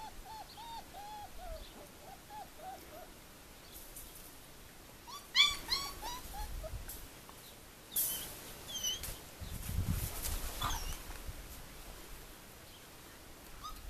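Four-week-old puppies whimpering and squeaking in a quick run of short, high cries, with a louder burst of yelps about five seconds in.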